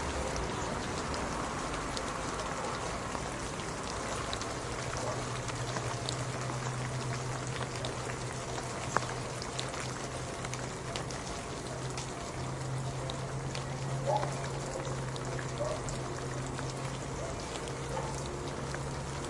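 Steady rain, with many separate drops ticking and one sharper drop about nine seconds in. A low steady hum sits under the rain from a few seconds in.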